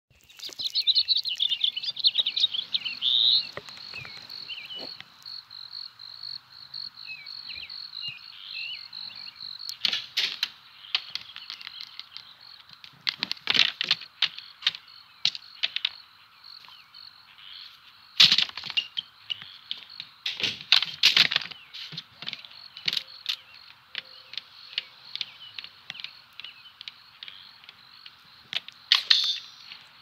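Film sound-effects ambience: a steady high insect trill with quick bird-like chirps over the first few seconds. Clusters of sharp clicks and knocks break in about ten seconds in, around thirteen to fourteen seconds, near eighteen and twenty-one seconds, and again near the end.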